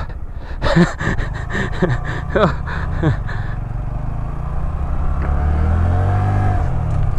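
Honda Grom's 125 cc single-cylinder four-stroke engine running while riding through sand, a steady low drone with wind noise on the microphone. Its pitch swells and falls again over the last couple of seconds.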